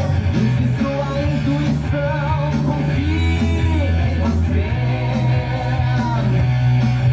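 Rock song playing, with electric guitars, a steady bass line and a male voice singing.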